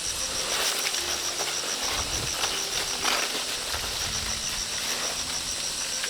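An insect chirping in a steady, fast, high-pitched pulse, breaking off for about a second midway, over rustling and handling of leaves and fruit.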